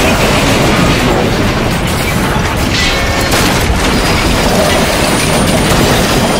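Big crash sound effect: a long, loud, continuous rumbling crash with clattering impacts, and sharper hits about three seconds in.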